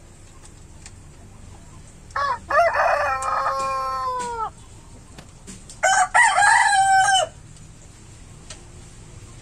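A rooster crowing twice: a long crow about two seconds in that drops in pitch at its end, then a shorter crow about six seconds in.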